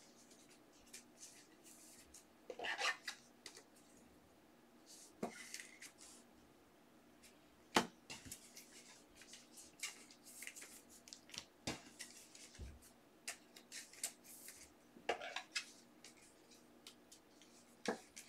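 Faint, scattered clicks and light taps with a few brief rustles, as of small objects being handled on a desk. The sharpest single click comes about eight seconds in.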